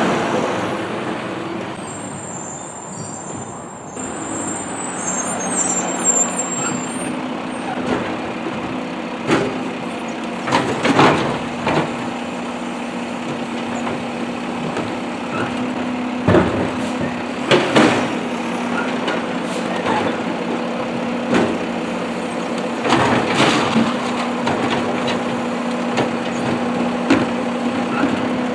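Automated side-loader garbage truck running beside the curb as its hydraulic arm grabs, lifts and tips a plastic wheeled garbage cart, with the engine humming steadily under repeated clanks and knocks from the arm and cart. An air brake hiss is heard as the truck stops.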